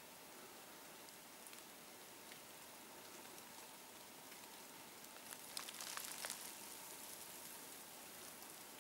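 Near silence: a faint steady hiss, with a brief spell of crackling and clicking about five and a half seconds in.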